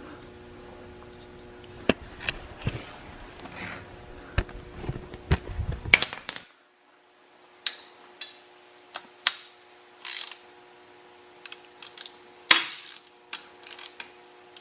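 Hand tools and metal engine parts clicking, clinking and scraping during an engine rebuild: irregular sharp taps and ratchet-like clicks, with a louder knock near the end.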